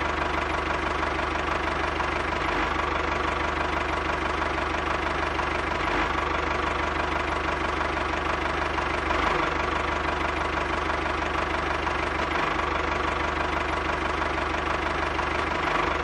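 Engine running steadily with a fast, even knocking beat and a steady tone over it, the running sound of the miniature DIY model tractor as it drives with its trailer. It starts and stops abruptly.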